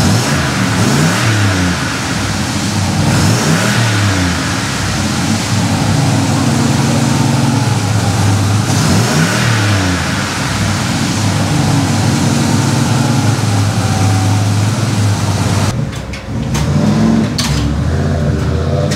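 Turbocharged LS V8 of a Chevy SS truck running through a freshly fabricated stainless single-into-dual exhaust while warming up, blipped up and back down three times in the first ten seconds and otherwise idling. The sound briefly drops out and changes about sixteen seconds in.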